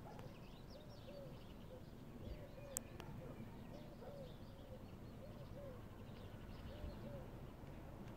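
A dove cooing softly over and over in short repeated phrases, with faint chirps of small birds and one sharp click a little under three seconds in.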